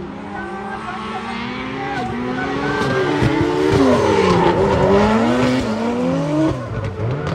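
Drift cars' engines revving up and down on the throttle with tyre squeal, growing louder to a peak about four to five seconds in as they pass, then easing off.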